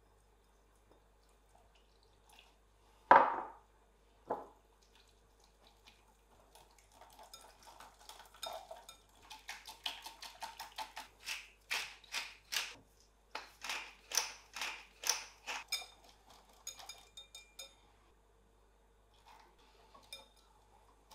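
A wire whisk beats pancake batter in a glass bowl, its wires clicking against the glass in a quick steady rhythm from about six to sixteen seconds in. Before that there are two sharp knocks, the first loud, about three and four seconds in.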